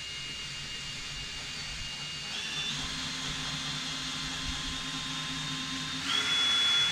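Electric drill running steadily, boring a pilot hole for a screw in wood. Its whine steps up in pitch about two and a half seconds in and gets louder near the end.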